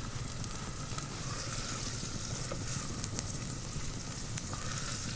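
Chopped vegetables sizzling in hot oil in a pan over a campfire, a steady hiss with scattered small pops.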